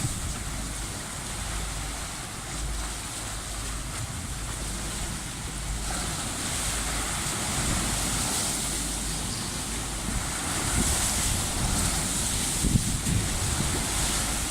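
Sea waves washing in with wind buffeting the microphone, the rush of water growing fuller about halfway through.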